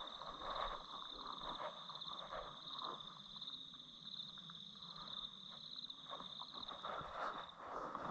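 Night insects trilling in a steady, high, pulsing drone, with faint irregular rustling underneath.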